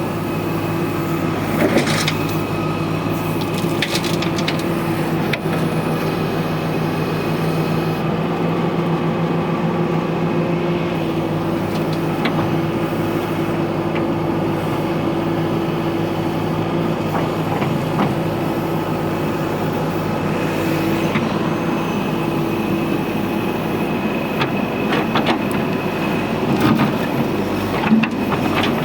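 Tata TH86 backhoe loader's diesel engine running steadily under work, with scattered sharp knocks and cracks, several close together near the end.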